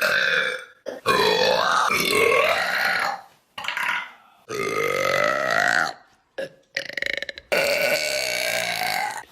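A person burping: about six long, drawn-out burps one after another, each with a gliding pitch, separated by short silent gaps.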